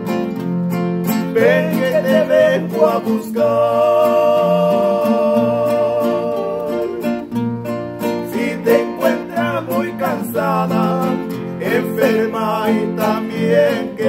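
Christian worship song: a solo voice sings with vibrato over plucked guitar and a bass line. Sung phrases come early and again in the second half, with held instrumental notes between them.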